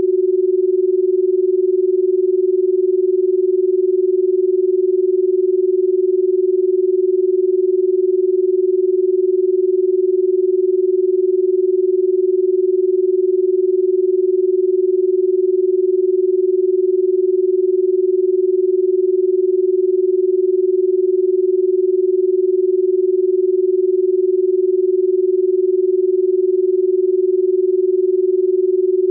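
A single steady electronic sine tone, mid-low in pitch, held unchanged, with a much fainter high tone above it: the carrier tone of a subliminal audio track.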